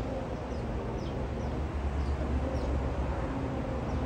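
A 6000 lb ATV electric winch running under load as it hauls a small car up onto its nose: a steady low motor hum.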